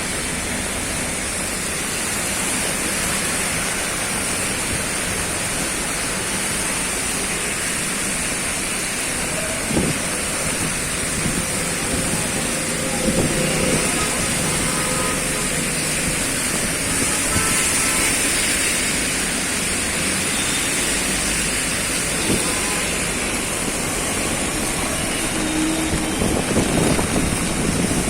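Steady hiss of rain mixed with the noise of vehicles, with a few short knocks now and then.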